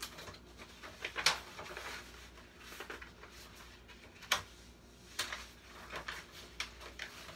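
Paper rustling and crinkling as the pages of a picture book are handled and turned, with a few sharper crackles, the loudest about a second in and again just after four seconds.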